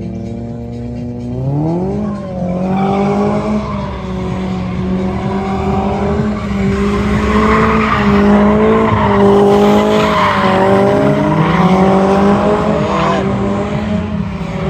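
Mercedes-Benz C-Class sedan drifting: its engine revs up sharply about two seconds in and is then held high with the revs wavering, while the tyres squeal and skid.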